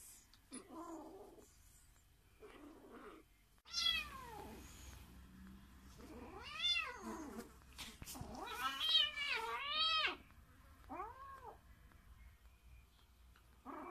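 A kitten meowing loudly in about five rising-and-falling cries, several coming close together about two-thirds of the way in, while a beagle pins and mouths it in rough play.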